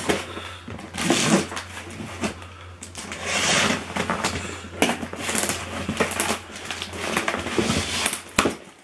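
Scissors slitting the packing tape on a cardboard shipping box, then cardboard scraping and rustling as the box is pulled open, with a few sharp clicks near the end.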